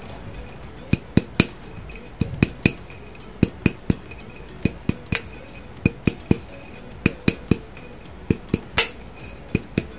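A glass mason jar being turned over and over in the hands to roll loose glitter around its coated inside, giving a string of light clinks and taps on the glass at uneven spacing, often in twos and threes, each with a short ring.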